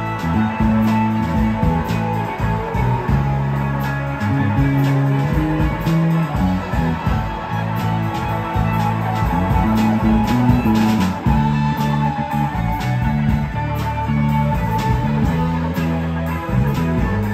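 Live rock band playing: electric guitars over a busy electric bass line and a drum kit, loud and steady.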